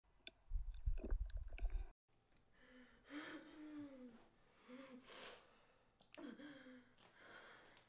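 Low, close thumping with small clicks for the first two seconds, then a woman's faint breathy moans and sighs: a few short whimpers and breaths, weak and unsteady.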